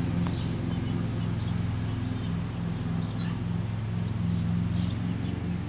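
A steady low machine hum, with small birds chirping now and then.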